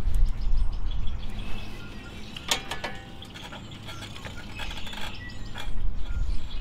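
Small parts of a stopped tiller engine being fitted back on by hand: a quick cluster of sharp clicks and knocks about two and a half seconds in, with a few lighter clicks later, over a low rumble that is strongest at the start and near the end.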